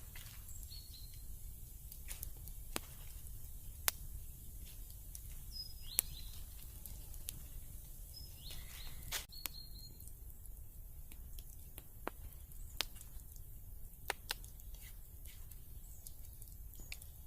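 Forest ambience: a steady low rumble with a few short high bird chirps and scattered sharp clicks and ticks.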